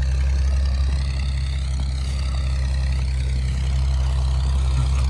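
Tractor engine running steadily at an even speed, a constant low drone.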